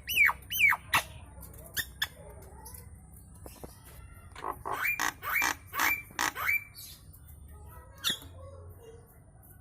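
Nias hill myna calling: three loud whistles in the first second that sweep down in pitch, then scattered clicks, then a quick run of rising whistled notes near the middle.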